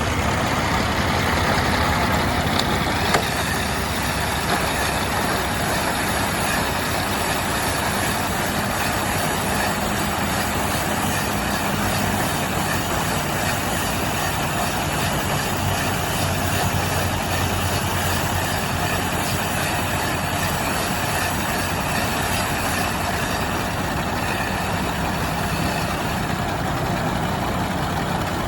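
Silage machine running steadily: a continuous mechanical noise over a low engine hum, with one sharp knock about three seconds in.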